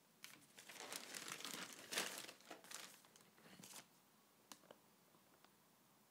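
Plastic courier mailer bag crinkling as it is handled and turned over, loudest about two seconds in, then a few faint ticks.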